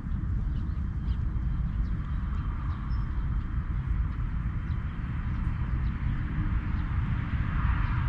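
Wind buffeting the microphone as a steady, flickering low rumble, with faint short bird chirps above it.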